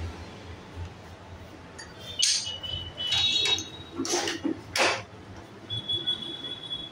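Hard objects clinking and scraping four or five times over about three seconds, starting about two seconds in, some strokes leaving a brief high-pitched ringing; a faint steady high tone follows near the end.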